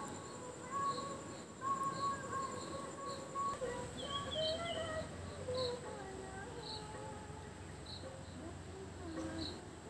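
Insects trilling steadily, with short regular chirps about once a second, under faint background music of held notes that step in pitch.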